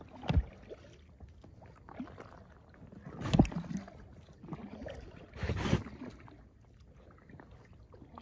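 Double-bladed paddle stroking the water from an inflatable raft: three louder strokes a few seconds apart, with fainter ones between.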